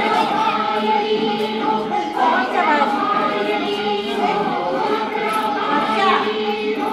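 A group of voices singing a devotional chant together in long, held, wavering notes.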